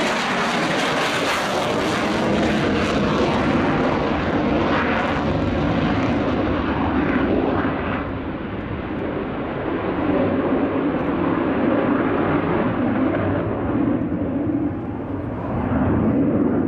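Sukhoi Su-27's twin AL-31F turbofan engines running on afterburner as the fighter pulls up and turns away, a loud, steady roar. After several seconds the hiss at the top dulls as the jet moves off, and the roar swells again near the end.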